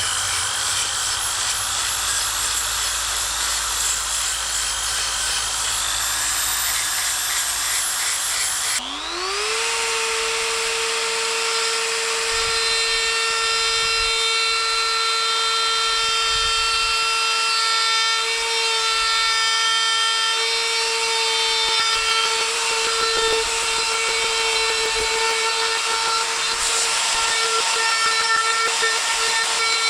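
Power carving tools cutting wood. For about the first nine seconds there is a rough grinding. Then a motor spins up to a steady, high whine and keeps running as it cuts.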